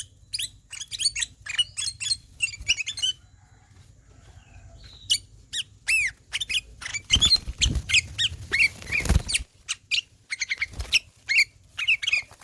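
Kutilang emas (a bulbul) singing a fast, continuous run of sharp, downward-slurred whistled notes, with a lull of about two seconds a few seconds in. A rustling noise runs under the song for a couple of seconds past the middle.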